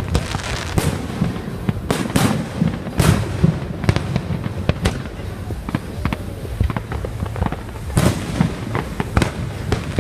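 Fireworks going off: a rapid, irregular string of sharp bangs and crackles, some loud and close, over a steady low rumble from the many launches.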